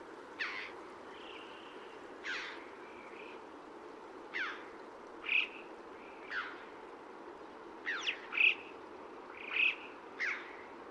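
Short bird calls repeated every second or two, some quick falling whistles and some brief chirps, over a steady background hiss.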